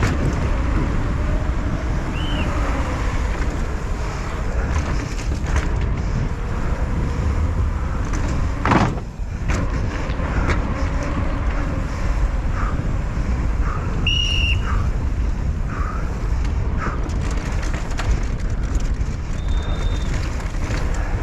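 Downhill mountain bike racing down a paved urban course: a steady rumble of tyres and bike rattle at speed, with a sharp knock about nine seconds in and a short high squeal around fourteen seconds in.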